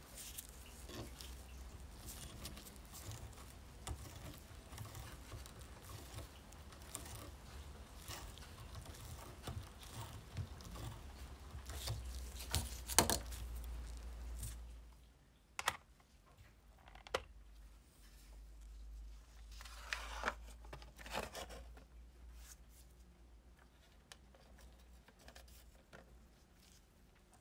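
Gloved hands handling and scraping the small rusty metal parts of an old trench lighter in a vise, with rustling, scraping and small metal clicks. One click a little before halfway is louder than the rest. After it the handling noise drops away, leaving scattered clicks.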